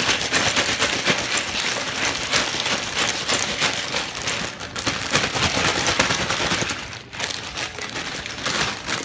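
Ice cubes and salt rattling and clattering inside a plastic zip-top bag shaken hard by hand, with the bag crinkling: a rapid, continuous clatter that eases briefly about seven seconds in. This is a drink in an inner bag being shaken in salted ice to freeze it into slush.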